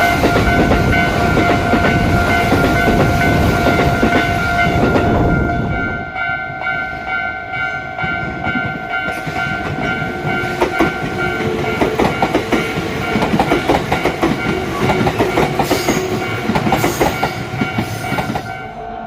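A Japanese level-crossing warning bell rings steadily while a train rumbles past over the crossing. The rumble drops after about six seconds. From about ten seconds in, a train's wheels click over the rail joints.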